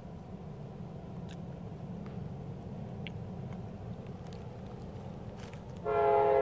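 Low steady rumble of an approaching freight train, then near the end a locomotive air horn suddenly sounds loudly, a chord of several notes.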